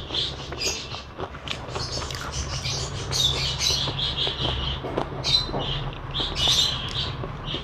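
Pet budgerigars and lovebirds chirping and squawking in quick, repeated calls, over a steady low hum.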